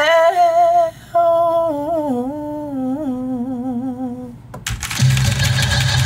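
A young man singing a Thai luk thung song unaccompanied, with long held notes and wavering, ornamented turns and a short breath about a second in. At about four and a half seconds, recorded music with a steady bass line starts abruptly.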